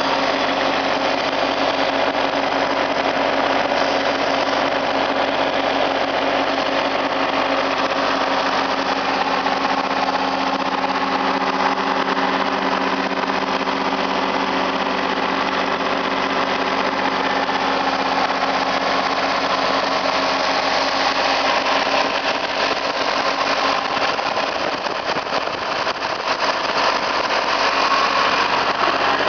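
New Holland TC29D tractor's Shibaura three-cylinder 29 hp diesel engine running steadily at about 1,800 rpm.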